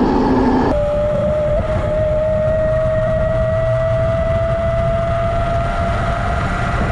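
72-volt QS90 electric motor on a mini bike whining at speed: a single steady tone that creeps slowly up in pitch as the bike gathers speed, over a low rush of wind noise. The sound changes abruptly about a second in, where the whine starts.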